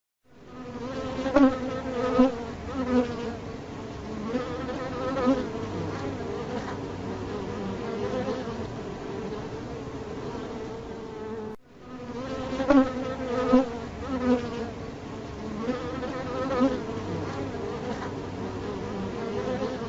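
Bees buzzing around a hive: a steady droning hum with several louder swells as it rises and falls. The sound drops out for an instant just past halfway and starts over, repeating the same passage.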